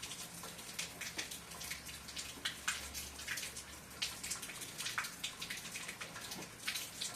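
Rainwater dripping and splashing off a wet roof: irregular drops landing several times a second over a steady patter of rain.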